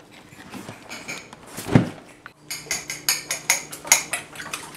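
A cardboard box is handled, with one sharp knock about two seconds in. Then eggs are whisked in a ceramic bowl, the utensil clicking against the bowl about four or five times a second.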